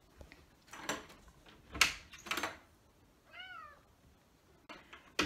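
Three thumps in the first half, then a cat meows once, a short call that rises and falls, about three and a half seconds in.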